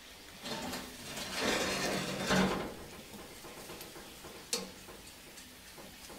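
Metal grill grate scraping and clattering as it is handled and pulled out from under the charcoal top-heat tray, the steak on it sizzling. One sharp click about four and a half seconds in.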